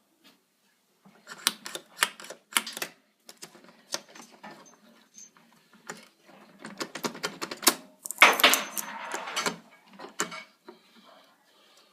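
Irregular sharp clicks and clattering of small mechanical parts on a pinball machine, with a louder, denser rattle about eight seconds in.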